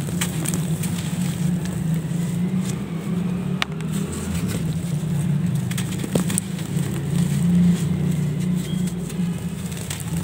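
A dry sandy chunk crushed in the hand, its grit and powder pouring down with soft crackling and a few sharp clicks. A steady low rumble runs underneath and is louder than the crumbling.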